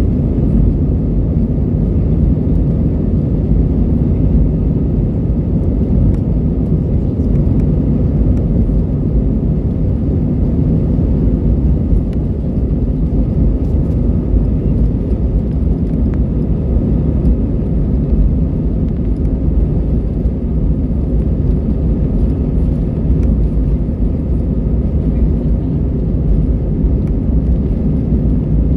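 Airbus A320's jet engines and airflow heard from inside the passenger cabin: a steady, loud low rumble.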